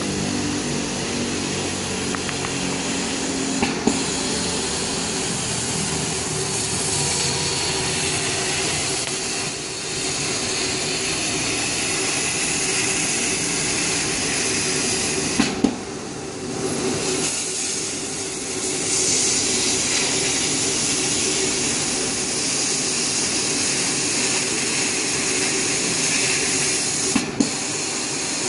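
Laser die-board cutting machine at work: a steady hiss of air blowing at the cutting head as it burns through the plywood board, with a machine running under it. Three short sharp clicks stand out, spaced roughly twelve seconds apart.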